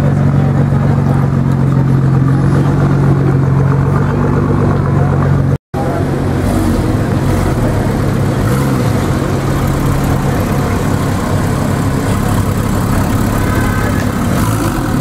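Nissan GT-R's twin-turbo V6 idling with a steady low note. After an abrupt cut about six seconds in, a Porsche 911 (991) flat-six runs at low revs as the car rolls slowly past, its note less steady.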